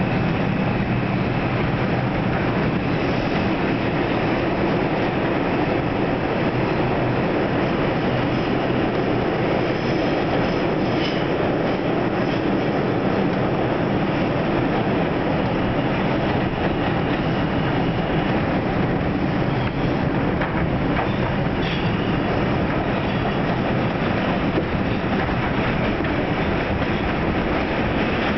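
New York City Subway 2 train running express at speed through the tunnel, heard from inside the car: a steady roar of wheels on rail with faint brief high squeals now and then.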